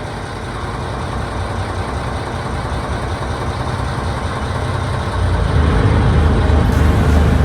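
An engine running steadily under a rushing noise, getting louder about five seconds in.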